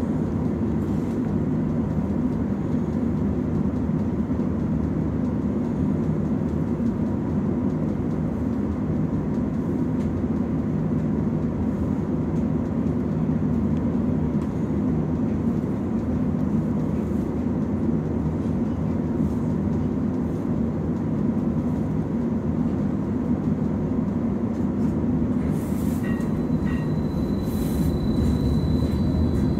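Inside a 2015 Inekon 121 Trio streetcar standing still: a steady low hum from its onboard equipment and ventilation. Near the end a thin high whine comes in and rises slightly as the car starts to pull away.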